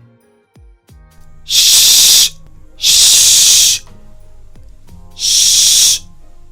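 A woman's voice sounding the fricative "sh" /ʃ/ on its own three times, each a hiss held for just under a second, over soft background music.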